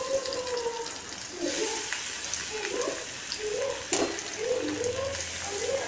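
Ghee sizzling in a steel pan as sliced banana pieces are dropped in by hand, with a short knock about four seconds in.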